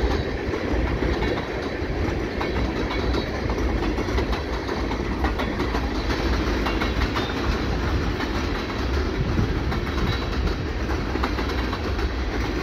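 Tank cars of a CPKC freight train rolling past, a steady rumble of steel wheels on rail with a run of clicks as the wheels cross the rail joints.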